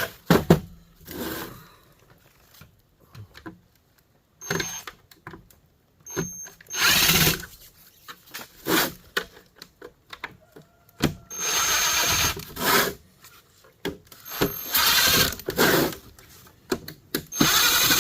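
Power drill running in short bursts of about one to two seconds, eight or so times, with pauses between.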